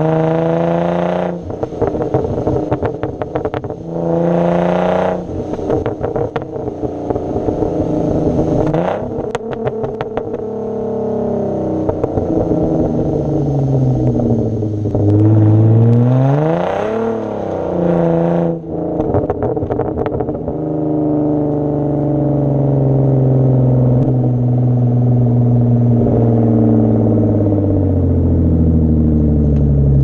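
Exhaust of a 2010 Hyundai Genesis Coupe 3.8 V6 with muffler and resonator deleted (catalytic converters still in place), heard right at the quad tips while driving. The revs rise and fall several times, with crackling as they drop, then the engine settles into a steadier drone that climbs slowly in pitch over the last third.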